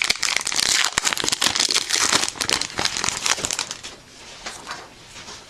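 Yu-Gi-Oh booster pack's foil wrapper crinkling as it is opened, dense and crackly for about three and a half seconds, then quieter rustling.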